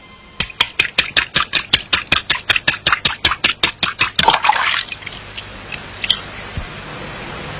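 A rapid, even run of sharp taps, about five a second, stops about four seconds in with a short rush of noise, followed by a steady hiss.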